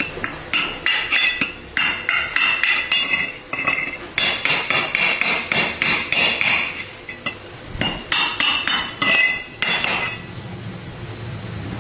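A hammer striking metal in a quick, uneven series of sharp, ringing blows, several a second, which stop about ten seconds in.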